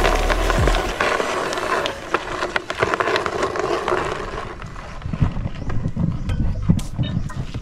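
Dry fallen leaves rustling and crackling underfoot, with scattered irregular clicks and knocks, densest and loudest in the first second.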